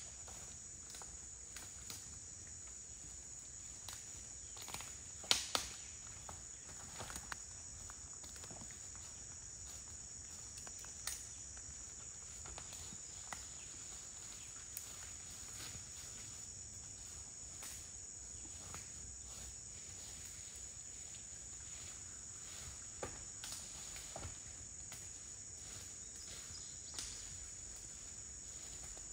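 A steady, high-pitched insect chorus, with a horse walking through woodland brush. Its hooves and the undergrowth give scattered cracks and rustles, the loudest about five seconds in.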